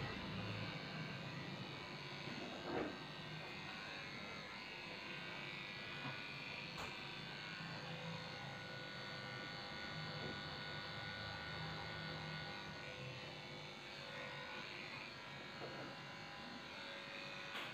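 Electric dog grooming clippers running steadily, shaving down a Shih Tzu's coat.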